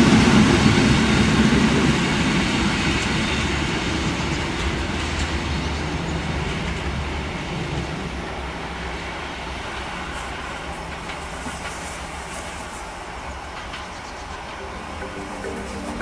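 A DB Class 218 diesel-hydraulic locomotive and its train of coaches running away into the distance. The engine rumble and the sound of the wheels on the rails fade steadily throughout.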